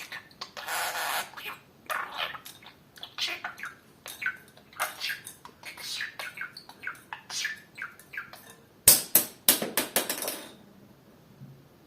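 Budgerigar chattering: a fast run of warbles, squeaks and talk-like syllables, with a burst of loud, sharp sounds about nine seconds in before it stops.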